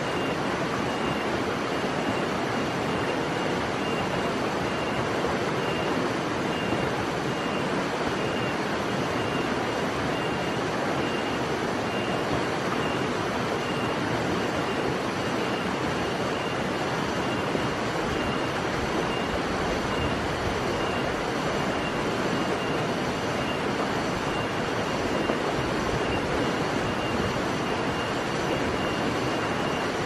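Steady rushing background noise, even throughout, with a faint high note repeating about twice a second that fades after about ten seconds.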